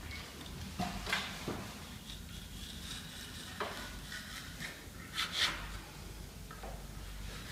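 Snap-off utility knife cutting vinyl wallpaper along the edge of a steel wallpaper spatula pressed against a molding, in short scraping strokes, the loudest a little past halfway.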